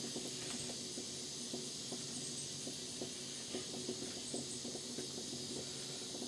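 Pancake batter sizzling on a hot Blackstone griddle: a steady hiss with many small pops and crackles scattered throughout.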